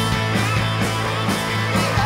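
Rock band playing live: bass guitar and drum kit with a steady drum beat about twice a second.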